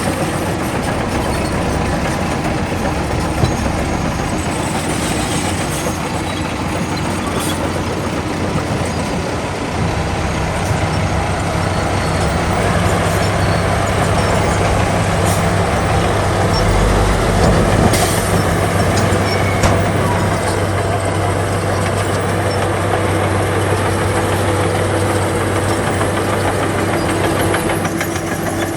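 Heavy diesel earthmoving machinery engine running steadily. A deeper, even hum comes in about ten seconds in and grows louder a couple of seconds later.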